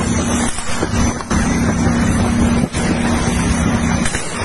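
A loud, steady low rumble with a constant hum, with wind on the microphone.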